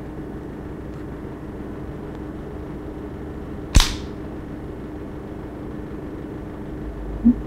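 Model 1910 Glisenti pistol's bolt being worked by hand, with one sharp metallic clack about four seconds in, over a steady low hum.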